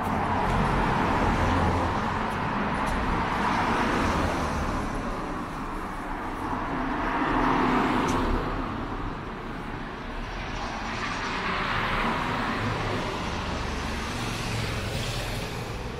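Street traffic: cars and a motor scooter passing one after another, about five rising and falling swells of engine and tyre noise over a steady traffic hum.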